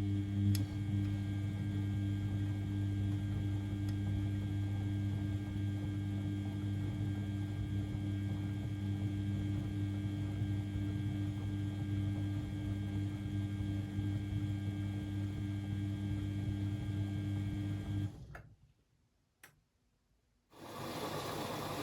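Beko WML 71433 NP washing machine giving a steady electric hum that cuts off suddenly near the end. After a brief quiet and a click, a steady hissing rush starts.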